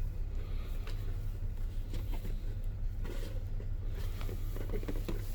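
Hands handling a smartphone's cardboard retail box and packaging: scattered light taps, scrapes and rustles over a steady low hum.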